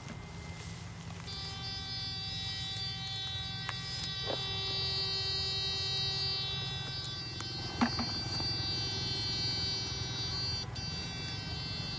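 Backpack electrofishing shocker giving a steady high-pitched electrical whine that starts about a second in, over a low hum, while its bamboo-pole electrodes are swept through a ditch. A couple of faint knocks are heard during the whine.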